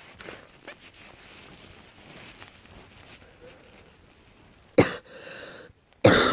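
A girl coughing: after several quiet seconds, one sharp cough with a short trailing sound about five seconds in, then another cough just before the end.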